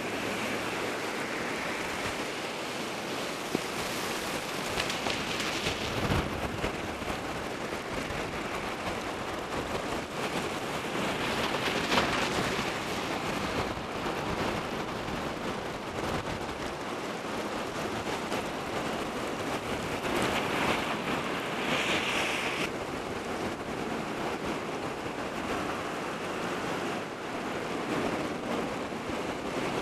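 Fast, muddy floodwater rushing and churning over the ground and across roads and railway tracks: a steady rushing noise, louder at times.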